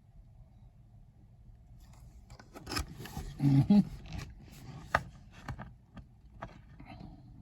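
Rubbing and scraping handling noises with several sharp clicks, loudest in the middle.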